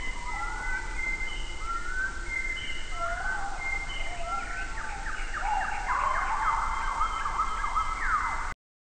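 A chorus of birds calling, many whistled notes overlapping, some rising, some falling, some held steady. The calls grow busier in the second half and cut off abruptly near the end.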